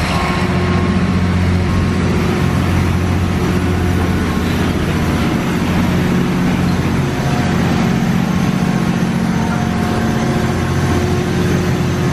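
Engine room machinery of the steamboat Natchez running while the boat is underway: a loud, steady drone with a low hum held at a constant pitch.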